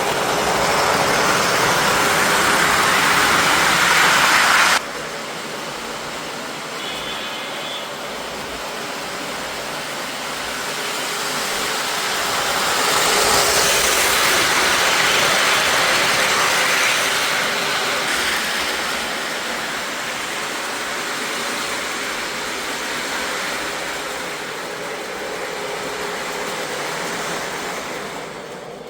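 Lionel CSX O-gauge model train running on its track: a steady rumbling whir of wheels and motor. It drops suddenly about five seconds in and grows louder for a few seconds in the middle.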